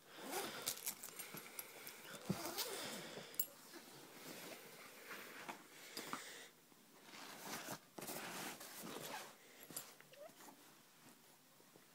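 Zip of a padded camouflage gun bag being pulled open in faint, scratchy stretches with short pauses, then fabric rustling and a few light knocks as an air rifle is slid out.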